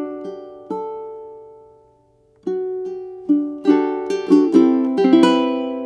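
Koa tenor ʻukulele played solo: a plucked note decays into a brief pause about two seconds in, then a phrase of plucked notes picks up and ends on several notes left to ring out.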